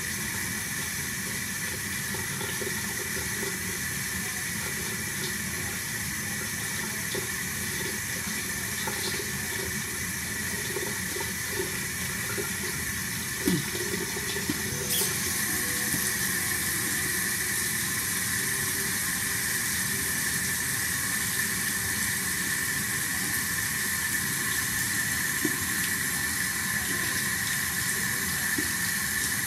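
Bathroom sink tap running steadily into the basin during tooth-brushing. There is a single thump about halfway through, and the water is a little louder after it.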